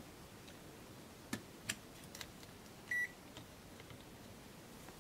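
A multimeter's continuity beeper gives one short beep about three seconds in, during a test of the board's tantalum capacitors for a short circuit. Two faint clicks of probe tips on the circuit board come before it.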